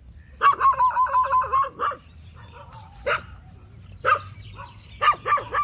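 A dog yelping and barking: a quick run of high yips about half a second in, then single barks spaced about a second apart.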